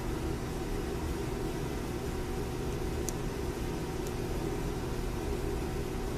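Steady mechanical room hum with a few faint steady tones, the sound of an air-conditioning or fan unit running, with a faint small click about three seconds in and another about four seconds in.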